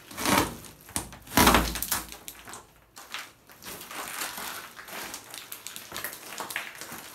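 Footsteps crunching and crackling over broken glass shards on a hard floor. Two louder thumps come first, the louder about a second and a half in.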